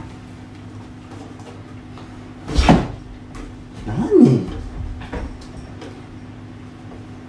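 A loud thump about two and a half seconds in, then a single short bowed violin note whose pitch slides up and back down, over a steady low hum.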